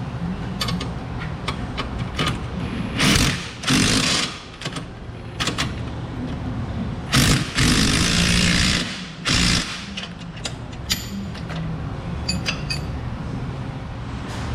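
An impact wrench runs in several short bursts, about half a second to a second and a half each, driving suspension bolts on a Jeep Wrangler's new control arms. Sharp metal clicks and clinks of tools come in between, over a steady low hum.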